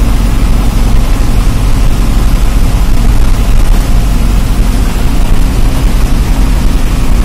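Diesel engine of a TSRTC PalleVelugu bus running loud and steady under way, heard from inside the cab.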